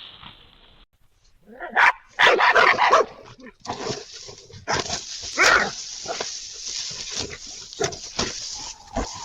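An animal giving a run of short, dog-like yelps and barks, loudest two to three seconds in and again just past halfway.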